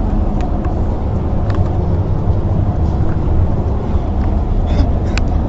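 Steady low rumble of road and engine noise inside a moving car's cabin, with a few faint light clicks.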